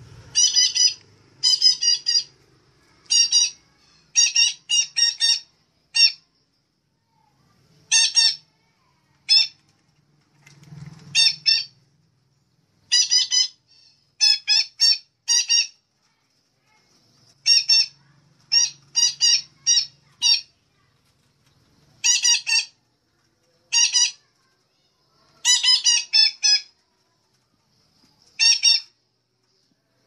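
Betet kelapa parrot giving short loud calls, singly or in quick runs of two to four notes, repeated every second or so. This is a lure call (suara pikat), played to draw wild parrots in.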